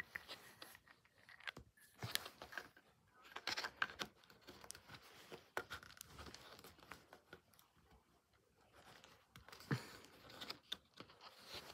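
Faint, scattered clicks and rustles as small plastic balls of a toy mini pool table are packed by hand into the plastic triangle rack.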